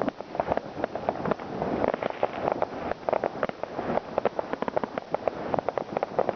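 New Year's Eve fireworks: a dense, irregular string of bangs and cracks over a continuous rumble of more distant blasts.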